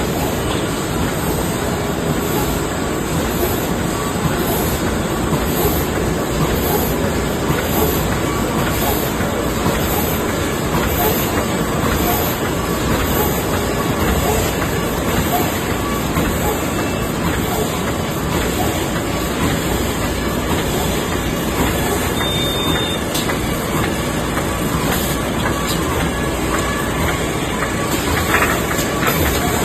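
Bottom-seal bag-making machine with a flying knife, running steadily. A dense mechanical clatter with a regular beat repeating more than once a second.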